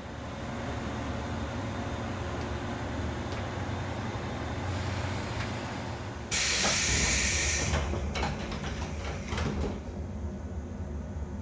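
JR 113-series electric train car standing at a station with a steady low hum, then about six seconds in a sudden loud burst of compressed-air hiss lasting about a second and a half, followed by a few knocks as the pneumatic sliding passenger doors close.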